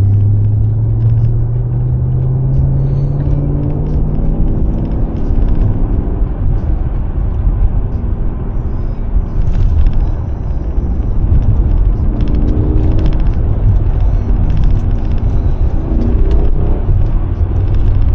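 Mercedes-AMG S63's V8 engine running under load as the car is driven, its pitch rising over the first few seconds, then settling into a steady low rumble. Brief rises in engine pitch come about twelve and sixteen seconds in.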